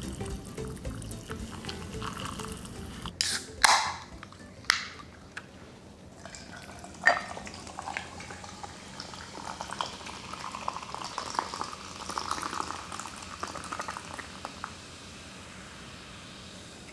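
Hot water poured from an electric kettle into a cup of instant noodles. A few loud sharp knocks follow, then a canned fizzy drink is poured over ice into a glass, fizzing and crackling for several seconds before it stops.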